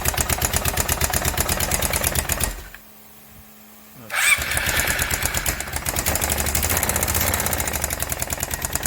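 Kawasaki Prairie 360's single-cylinder four-stroke engine running with an even knock, shut off about two and a half seconds in, then restarted about a second and a half later and running on. The knock is taken for a bad crankshaft main bearing.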